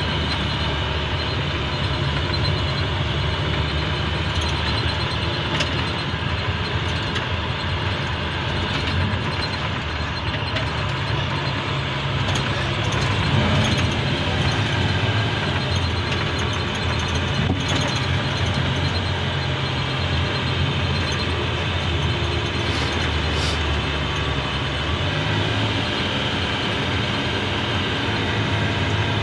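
Sludge vacuum truck's engine running steadily, heard from inside the cab while driving.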